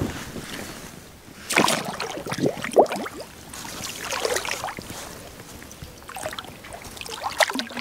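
Water splashing and sloshing in irregular bursts as a pirarucu is let go at the water's edge and thrashes off, the loudest splash a little under three seconds in.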